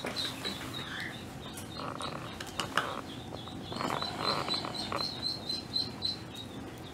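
Rapid runs of short, high chirps, about five a second, from a small animal: one run near the start and another about four seconds in. Light scuffling runs alongside.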